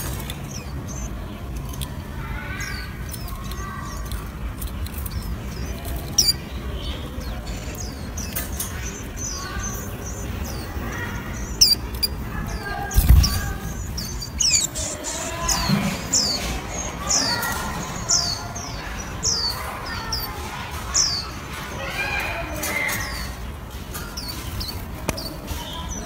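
Warbling white-eyes calling: many short, high, thin chirps that sweep downward, coming thick and fast through the middle, over a low steady hum. A single thump about 13 seconds in.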